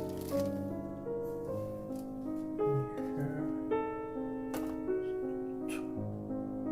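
Background piano music with held notes, with two short clicks about two-thirds of the way through.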